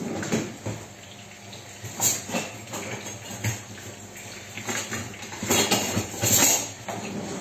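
Metal cutlery clinking and rattling in a wicker basket as it is rummaged through, in several short irregular bursts, the busiest about two thirds of the way in.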